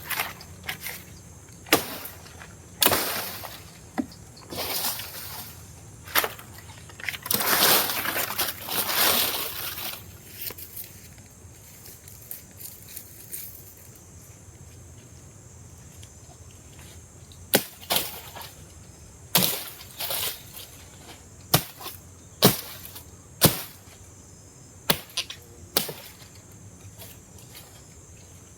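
Irregular sharp knocks and cracks, with rustling bursts in the first few seconds, over a faint steady high-pitched drone of insects.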